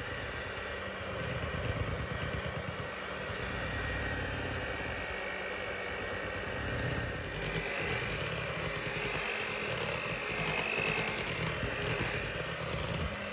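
Electric hand mixer running steadily, its beaters whirring through thick cake batter, with a higher whine coming in about halfway through.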